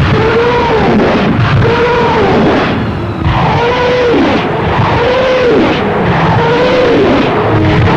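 Rocket launcher firing a salvo in sequence: a run of about six howling rocket tones, one roughly every second, each rising then falling in pitch, over heavy rumbling blast noise.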